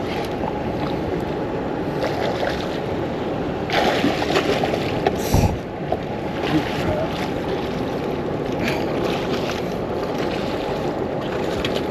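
Steady rush of water from a dam spillway, with rustling and knocks of a landing net and gear being handled in the boat about four and five seconds in.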